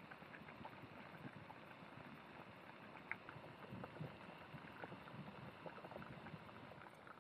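Faint steady hiss from a Jetboil canister gas stove boiling water, with scattered small pops and ticks.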